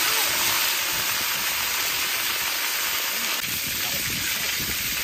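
Frozen fish frying in hot oil in a large iron wok: a steady sizzling hiss.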